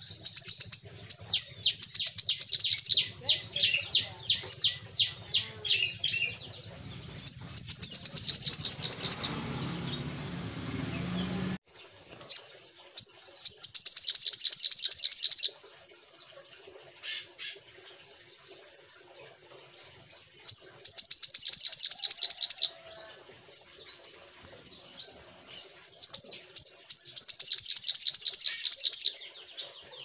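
Olive-backed sunbird singing: five rapid, high, buzzing trills of about two seconds each, with short high chips and twitters between them.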